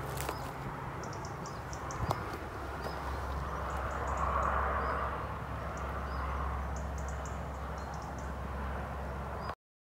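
Footsteps on stony, dry-grass ground, with scattered crisp ticks and crunches and one sharper click about two seconds in, over a steady low rumble.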